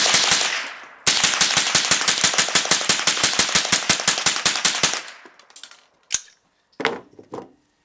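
.22 LR rounds fired from an AR-15 fitted with a CMMG .22 conversion kit, the kit dirty and unlubricated: one shot, then about a second later a rapid, even string of shots at about eight a second for some four seconds, emptying the magazine.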